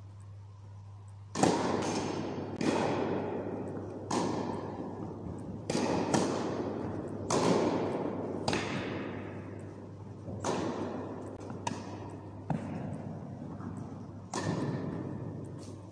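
Tennis ball struck by rackets in an indoor tennis hall: a serve about a second in, then a rally of about ten sharp hits and bounces, each ringing on in the hall's echo. A steady low hum runs underneath.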